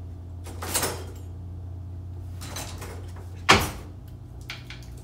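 Kitchen drawer full of utensils being rummaged and slid, then shut with one sharp bang about three and a half seconds in. A few light clicks of a utensil on the pizza's metal baking tray follow near the end.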